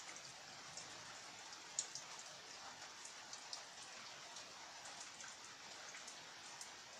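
Steady light rain falling, with scattered individual drops ticking on a surface and one sharper drop a little under two seconds in.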